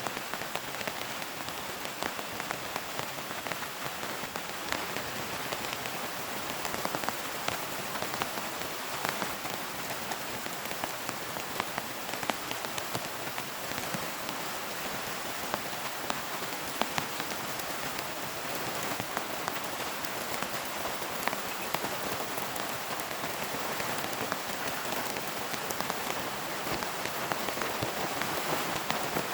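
Heavy rain pouring steadily, with many sharp individual drops striking a surface close by.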